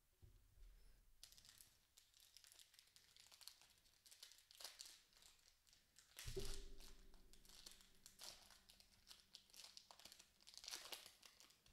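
Foil wrapper of an Upper Deck hockey card pack being torn open and crinkled by hand: faint, irregular crackling and tearing, loudest about six seconds in.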